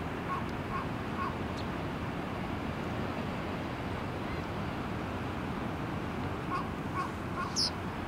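Steady wash of water and wind noise by open water. Short distant bird calls come in groups of two or three near the start and again about six to seven seconds in. A single brief high chirp follows near the end.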